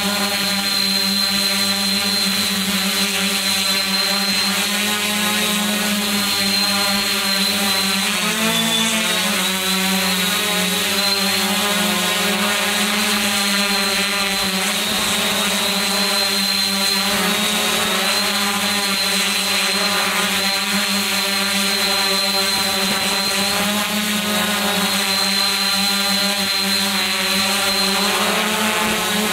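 Multirotor drone's electric motors and propellers running with a steady hum and a high whine, heard close up from the drone-mounted camera. The pitch dips and rises briefly about eight seconds in.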